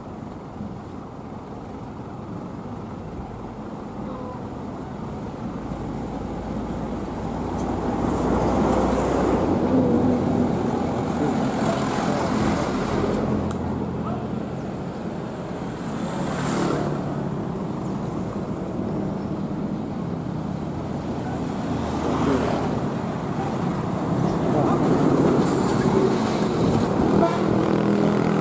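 Road traffic: motor vehicles, among them a motorcycle and minibuses, driving past on a nearby road. The engine noise swells and fades as each one goes by, with louder passes about a third of the way in and again near the end.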